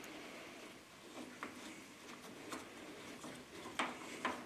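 Faint, scattered light metallic clicks, about four of them, as the front strut's top-mount nut is handled and turned by hand.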